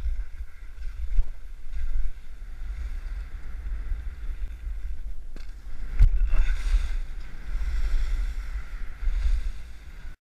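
Wind buffeting the camera's microphone while skiing downhill fast: a heavy low rumble with the hiss of skis sliding on snow, swelling and easing as the skier turns, and a knock about six seconds in. The sound cuts off abruptly near the end.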